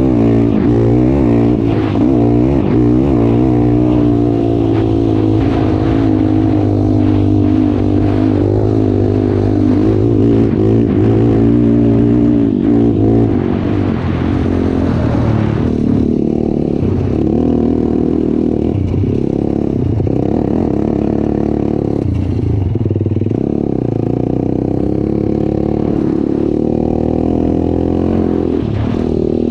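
Off-road vehicle engine running under way over sand, its pitch rising and falling with the throttle for the first dozen seconds, then holding steadier.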